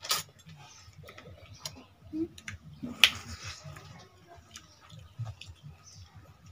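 People chewing and smacking their lips while eating juicy orange segments: scattered wet mouth clicks, with two louder sharp clicks just after the start and about three seconds in.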